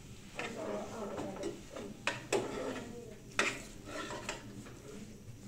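Steel spoon scraping and clinking against a steel plate while scooping out a thick filling, with a few sharp metal clinks, the loudest about two and three and a half seconds in.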